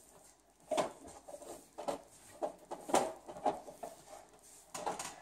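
Paintbrush being worked against a wall: a string of short, irregular brush strokes and light scrapes as paint is cut in along the trim.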